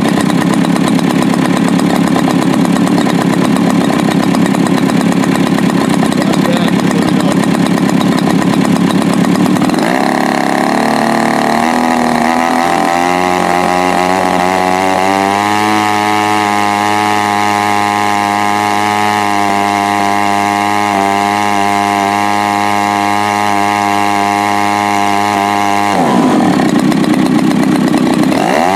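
Sachs Dolmar 3.7 (61cc) single-cylinder two-stroke gas engine on a large RC model plane, running at high throttle with its top end a little rich ('too fat'). About ten seconds in it is throttled back and settles into a steady idle, with a short rev near the end.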